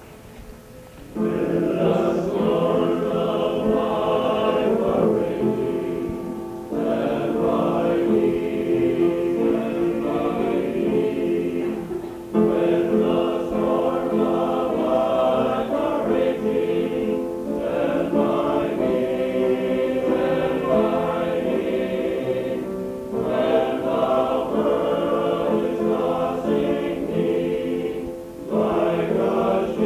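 Men's chorus singing in harmony, coming in about a second in and going on in phrases with short breaks between them. Heard from a cassette tape recording.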